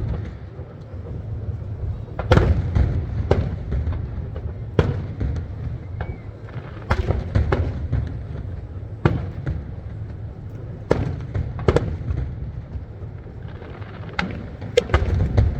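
Fireworks display: aerial shells bursting with sharp bangs at irregular intervals, about a dozen in all, over a steady low rumble.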